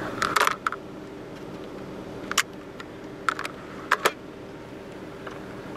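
Sharp clicks and taps of a camcorder being handled, a quick cluster in the first second, then single clicks about two and a half, three and a half and four seconds in, over a faint steady low hum.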